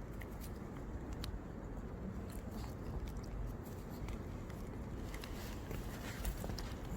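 Small dog, a Maltese, chewing and tearing at grass: a run of small irregular crunches and clicks over a low outdoor rumble.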